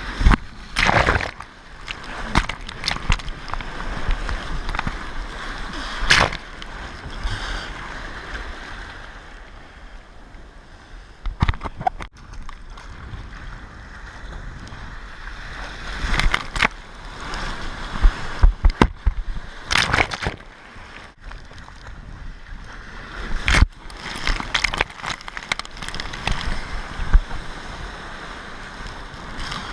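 Rough ocean surf close by: water sloshing and splashing, with several sudden loud splashes over a steady rush of wind and water.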